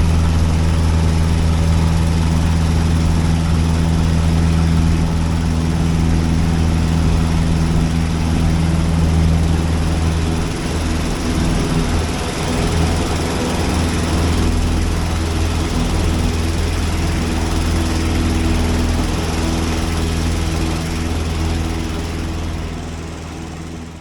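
Titan CC340 air-cooled four-cylinder engine of a bush plane running steadily at low power with the propeller turning. The note wavers and roughens briefly about ten seconds in, then settles, and fades out at the end.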